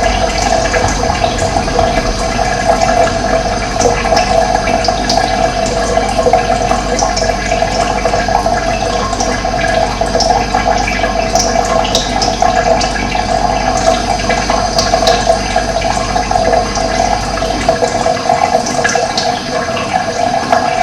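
Steady rush of running water, with small birds chirping now and then above it.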